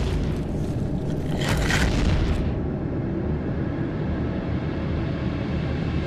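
Cinematic sound design: a low, steady rumbling boom, with a hissing hit about a second and a half in that fades away within a second.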